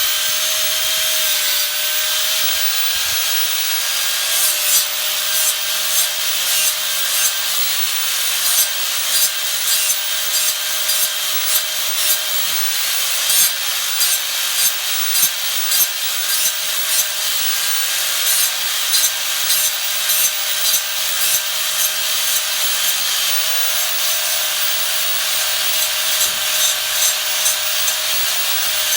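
Hand sawing: rhythmic rasping back-and-forth strokes, a bit under two a second, over a steady hiss and a faint whine.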